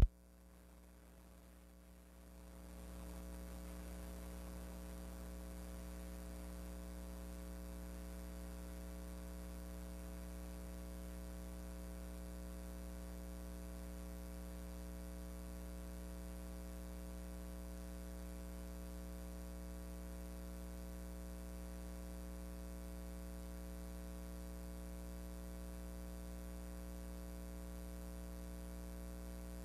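Steady electrical mains hum made of several held tones over a faint hiss. It comes up about two and a half seconds in after a moment of near silence, then stays even.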